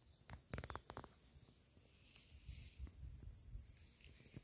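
Very quiet background: a short run of soft clicks about half a second in, then scattered faint low thumps over a faint, steady high-pitched hum.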